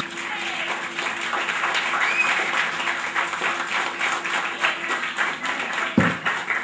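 A group of people applauding, many overlapping hand claps, with a single thump near the end.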